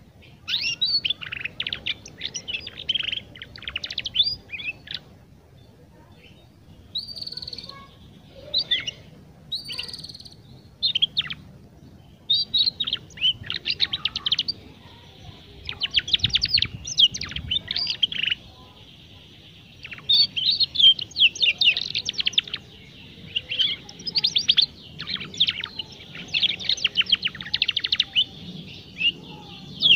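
Young domestic canary practising its song: phrases of rapid, high trilled twittering a second to a few seconds long, broken by short pauses.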